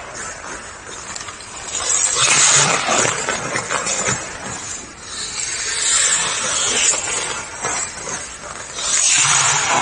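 Hockey skate blades carving and scraping the ice as the skater works backwards through a cone drill, a hiss that swells and fades every few seconds with the strides.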